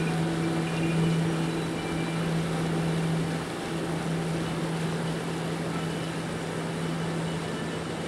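Motorboat engine running at a steady low hum, over the rush and splash of churned water behind the boat.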